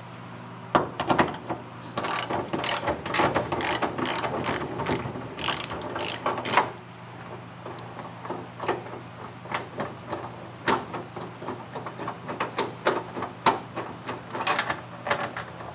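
Ratchet wrench clicking as a subframe mounting bolt is turned. The clicks come fast and steady for the first several seconds, then slow to scattered single clicks.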